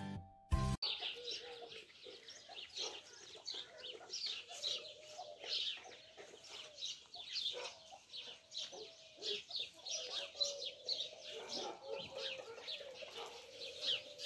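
Young chicks peeping: many quick, high, downward-sliding peeps, several a second, over the soft, low, repeated clucking of their broody mother hen.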